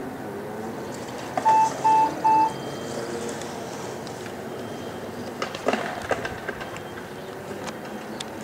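Three short electronic beeps, evenly spaced and identical in pitch, about a second and a half in, over a steady outdoor background hum; a few faint clicks follow near the middle.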